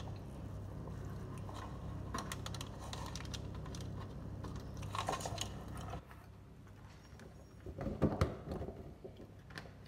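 Small clicks and crinkling of a plastic piping bag as cookie dough is squeezed and worked in it on a countertop, with a louder squelching scrape about eight seconds in as dough is pressed out onto the baking tray. Under it runs a low steady hum that stops about six seconds in.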